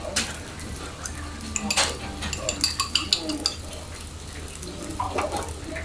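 Long cooking chopsticks clicking against a small ceramic bowl as egg is beaten, with pot and dish clinks, over cutlets simmering and sizzling in broth in small single-serving pans on gas burners and a steady low hum.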